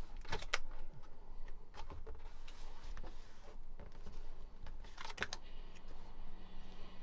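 Scattered light clicks and knocks of laminate flooring pieces being handled and worked on a table top, with a small cluster of knocks about five seconds in.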